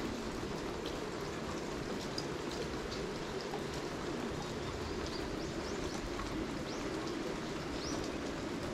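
Steady rain falling and dripping, with a few faint high chirps in the second half.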